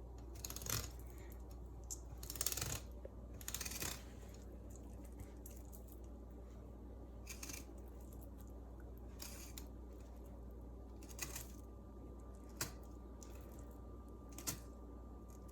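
Scattered short scrapes and clicks of a knife working halibut on a cutting board, over a steady low hum; the busiest stretch is in the first four seconds, with a few single sharp clicks later on.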